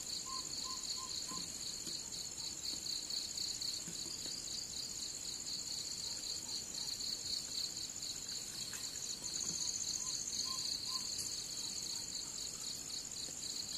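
Crickets trilling steadily in a night chorus, two pitches pulsing together. A short run of faint peeps sounds about a second in and again near the end.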